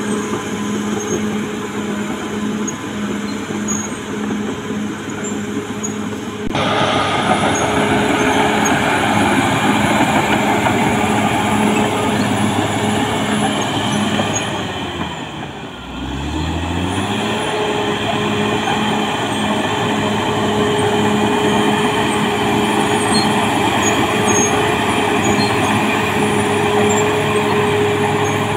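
CAT D6R XL crawler dozer's diesel engine running under load as it pushes soil, with the steel tracks clattering. The sound gets louder and brighter about six seconds in. About halfway through the engine drops briefly, then revs back up and runs steadily again.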